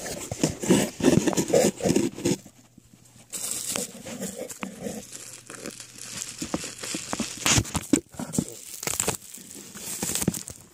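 Bubble-wrap packaging crinkling and rustling as it is handled, with irregular knocks and scrapes from fumbling with the package and phone.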